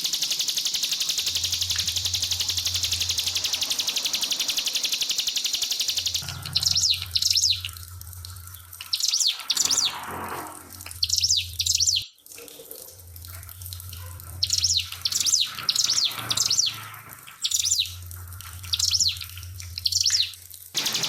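Ciblek pinus (a prinia) singing repeated short bursts of sharp, quick high notes with pauses between them, over trickling water. For about the first six seconds there is only a steady hiss before the bird starts.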